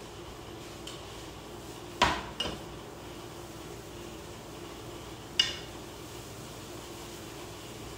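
A utensil clinking against a metal pan three times, twice close together about two seconds in and once more past the halfway point, as pork floss is stirred dry in the pan. A faint steady hum runs underneath.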